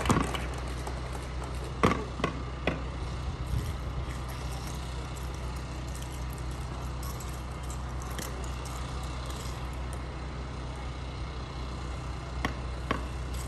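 Sharp hits from a rifle drill team's movements, such as rifle slaps and boot stomps. One comes at the start, three close together about two seconds in, and two more near the end, over a steady low hum.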